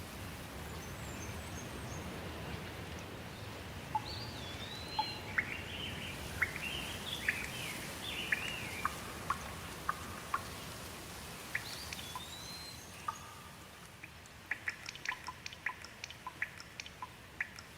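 Steady rain hiss that eases toward the end, with a bird calling in short whistled, up-and-down notes in the middle. Near the end comes a quick run of sharp ticks and chirps.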